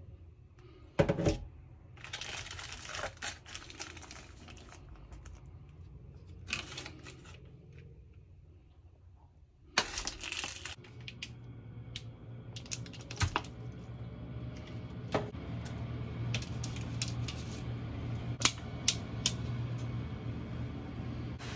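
Scattered light clicks and taps, some in quick little runs, with short rustling bursts; a low steady hum comes in about halfway.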